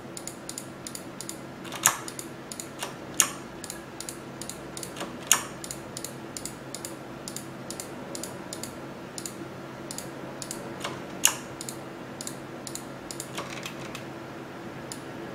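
Computer keyboard and mouse clicking irregularly, a handful of clicks a second, with four clicks louder than the rest. A faint steady hum runs underneath.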